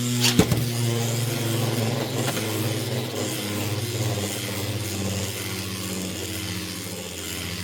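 Beyblade X spinning tops whirring in a plastic stadium: a steady low hum that sinks slightly in pitch as they slow, broken by a few sharp clicks of the tops striking each other, the clearest about half a second in.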